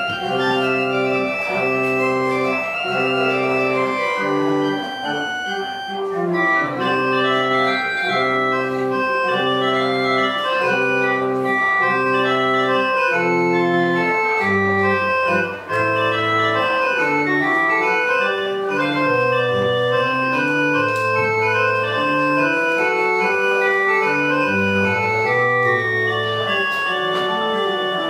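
Church organ playing a closing voluntary after the dismissal: held chords repeated about once a second, then from about halfway a moving bass line under a quicker upper part.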